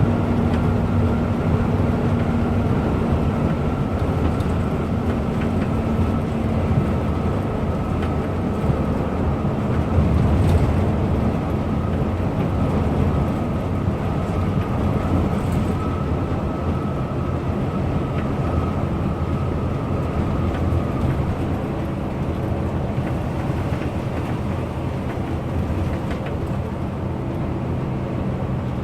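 Diesel intercity bus running steadily at speed: a low engine drone with a thin steady whine above it and constant road noise.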